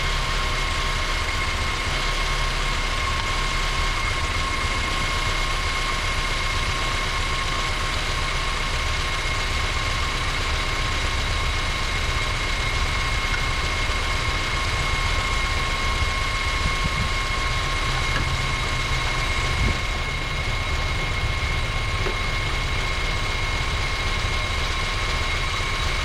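A 2012 Honda Civic's natural-gas four-cylinder engine idling steadily with a misfire on cylinder 3 (code P0303). A steady high whine runs over the low engine rumble.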